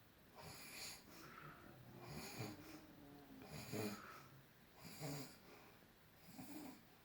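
A man snoring in his sleep: about five snoring breaths, one every second and a half or so, some carrying a low drawn-out tone.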